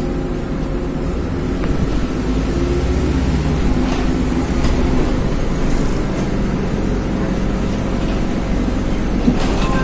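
Cabin sound of a LiAZ 5292 low-floor city bus: its diesel engine running with a steady low hum, with a few light clicks and knocks.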